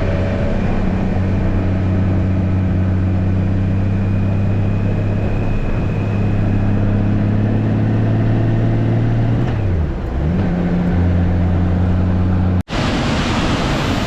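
A 2016 Honda Gold Wing's flat-six engine running at a steady cruise, its pitch dipping briefly and climbing back about ten seconds in. Near the end it cuts off abruptly to the steady rush of a waterfall.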